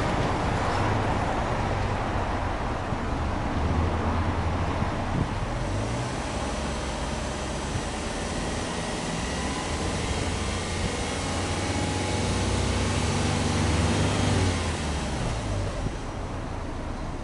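Subaru Legacy 2.5GT's turbocharged 2.5-litre flat-four running at low speed, heard at the twin exhaust tailpipes. Its note rises slightly a few seconds in, holds steady, and settles back down near the end.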